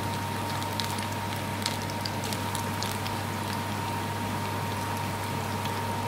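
Potato and red lentil pakoras deep-frying in hot oil: a steady sizzling hiss with many small scattered crackles and pops. A steady low hum and a thin steady tone run underneath.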